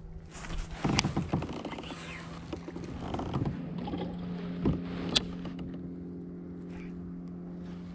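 Steady low drone of a boat engine running, with rustles and knocks of a fishing rod and baitcasting reel being handled in a kayak. Sharp knocks come about a second in and about five seconds in.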